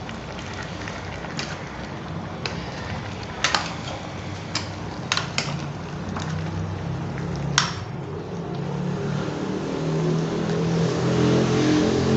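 A metal spoon stirring spinach, mutton and spices in an aluminium pressure cooker, with sharp clinks and scrapes against the pot's side, several in the first half. In the second half a steady hum and hiss rise and become the loudest sound.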